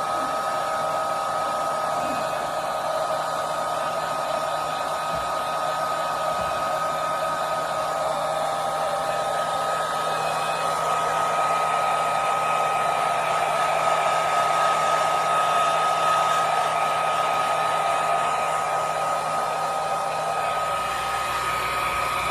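Hair dryer blowing continuously with a steady whine, its tone swelling slightly now and then as it is moved.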